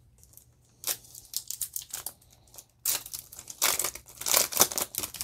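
A Yu-Gi-Oh Toon Chaos booster pack's foil wrapper crinkling in the hands and being torn open. There are a few scattered crackles at first, then a dense run of crinkling and tearing in the second half.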